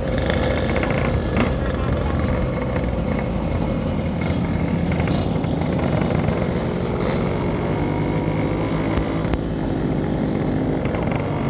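Yamaha RX-King's 135cc single-cylinder two-stroke engine running steadily under way, its pitch shifting a little partway through.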